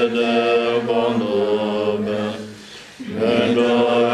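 Tibetan Buddhist monks chanting, low sustained voices holding steady pitches. The chant breaks off for a breath about two and a half seconds in and resumes about half a second later.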